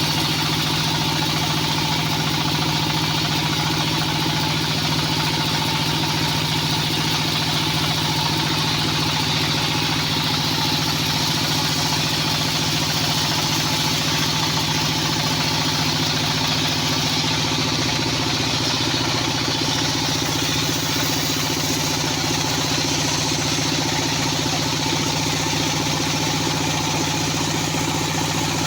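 Engine of a band sawmill running steadily at an even speed, a constant drone with no breaks or changes.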